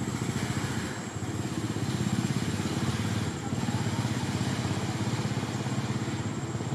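A small engine running steadily, with a fast, even low pulsing.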